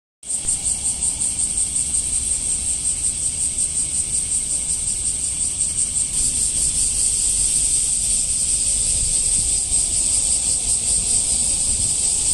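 Cicada singing: a loud, steady, high-pitched buzz with a fast pulsing flutter. It starts abruptly and swells slightly about halfway through.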